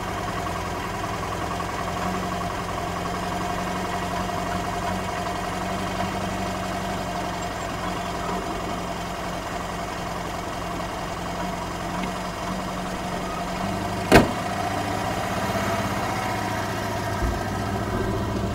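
An old sedan's engine idling steadily, with a single sharp knock about fourteen seconds in.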